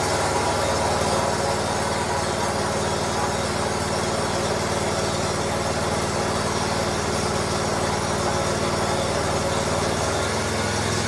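Briggs & Stratton Vanguard 37 hp EFI V-twin on a zero-turn mower running steadily, just after start-up on fresh oil following an oil change.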